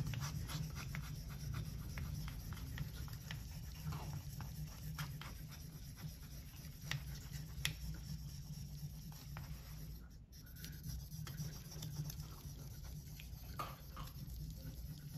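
Opinel folding knife blade rubbed back and forth on a wet 5000-grit Shapton Kuromaku waterstone: a quiet, irregular scratching with small clicks from the strokes.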